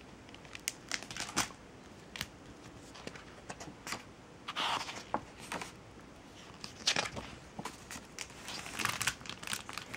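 A hardcover picture book being opened and its paper pages turned by hand: soft rustling and swishing with small clicks and taps, a few separate page turns.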